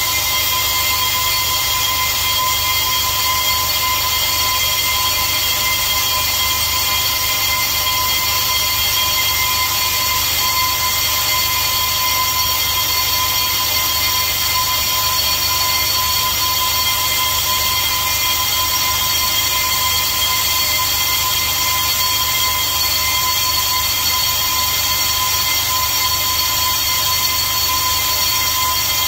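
Brake disc lathe skimming a new Zimmermann brake disc: a steady high whine over a constant hiss. The disc is being machined true because it developed runout.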